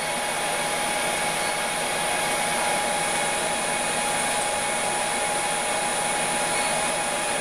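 Steady mechanical whir of a small motor running, with a few thin steady whining tones over it.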